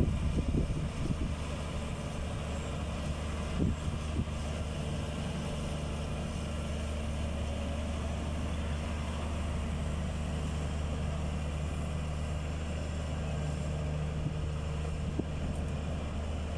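Backhoe's diesel engine running steadily, with a few sharp knocks in the first second and about four seconds in.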